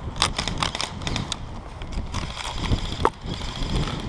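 Close rustling and crackling of dry pine litter, twigs and clothing as a person shifts while sitting on the forest floor, with a run of sharp irregular clicks in the first second or so and soft thumps after.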